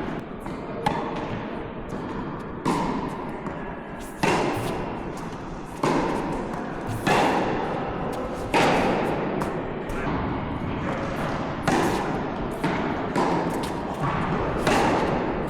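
Tennis balls struck by rackets in a rally, a sharp hit about every one and a half seconds, each followed by an echo as in a large hall.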